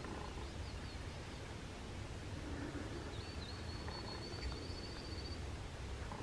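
Faint sounds of an eastern wild turkey gobbler, over a low steady rumble.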